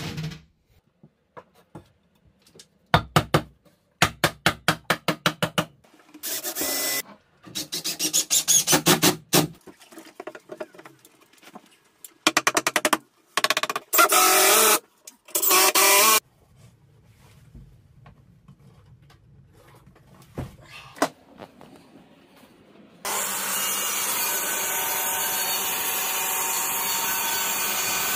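Cordless drill driving screws into wall battens in several short bursts, with runs of rapid even clicks in the first few seconds. About five seconds before the end, a Makita plunge saw, with a dust extractor attached, starts cutting a board on its guide rail and runs steadily.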